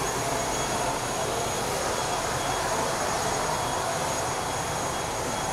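Wheeled suitcase rolling over a hard, smooth floor: a steady rumbling hiss that does not let up, with a faint high steady whine over it.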